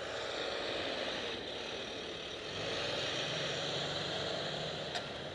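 Large International 7300 pickup truck with a DT466 diesel engine passing close by. Its engine gives a low, steady hum that grows louder about halfway through, over steady wind and road hiss on a helmet camera. A single sharp click comes near the end.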